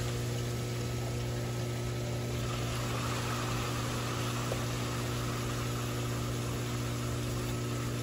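Pool circulation pump motor running steadily, a constant low hum with water rushing through the plumbing.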